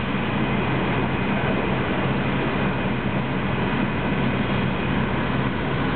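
Diesel engines of two hydraulic demolition excavators running steadily while working, a constant low drone under an even wash of noise.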